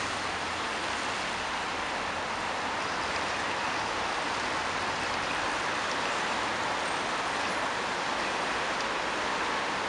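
Steady hiss of rain falling, mixed with cars driving on the wet street.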